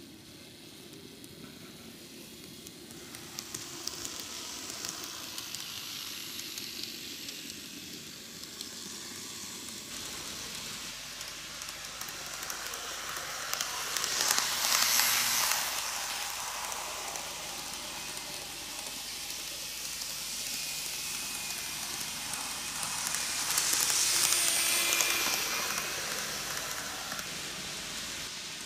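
N gauge model trains running on TOMIX superelevated track: a steady hiss and rattle of small wheels and motors on the rails. It swells twice, loudest as the cars pass close by about halfway through and again near the end.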